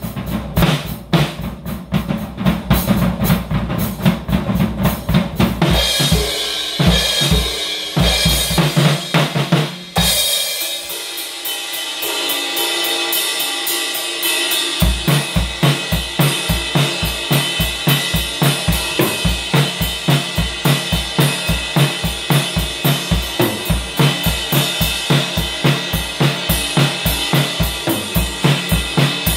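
Drum kit played: a drum groove, with cymbal wash building in after about six seconds. Around ten seconds in, the drums drop out for a few seconds of cymbals alone, then a steady beat on bass drum and cymbals returns.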